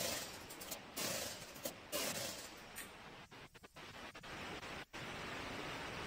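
Honda XR250's air-cooled single-cylinder four-stroke engine running through a Barrel 4 aftermarket silencer, heard as a steady rough noise with three short louder surges in the first two seconds.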